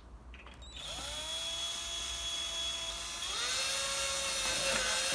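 Electric drill boring a pilot hole: the motor whine starts about a second in and rises in pitch as it spins up, rises again about three seconds in, and ends with a short louder burst as it stops.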